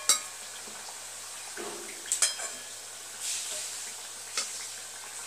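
Kachoris deep-frying in oil and ghee in an aluminium kadai, a steady low sizzle. A perforated metal slotted spoon clinks sharply a few times as they are lifted out of the oil.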